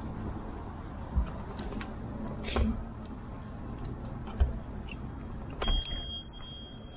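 Tern HSD e-bike rolling along a wet, uneven tarmac path, with a steady tyre and road noise. About four sharp knocks come as the bike and its handlebar-mounted camera jolt over bumps in the surface. Near the end a single high ringing tone starts and holds.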